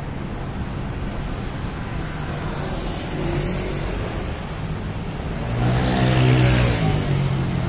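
Road traffic with a steady hum, and a motor vehicle passing close by, its engine loudest about six seconds in.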